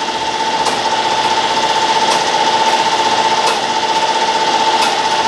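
Brown & Sharpe 10x24 universal grinder running, with a steady whine and a dense mechanical clatter, and a sharp tick about every second and a half.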